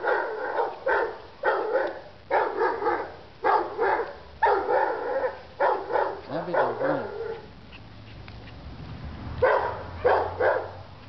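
A dog barking in quick runs of short, sharp barks. The barks stop for about two seconds, leaving a low steady hum of traffic, and a few more barks come near the end.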